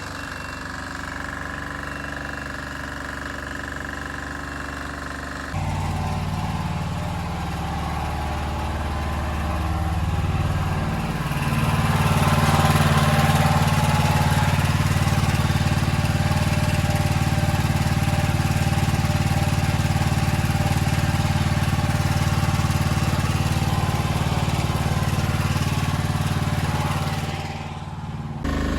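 Engine-driven machinery running steadily. The engine note changes abruptly about five seconds in to a louder, lower one, and a hiss builds underneath it from about twelve seconds in.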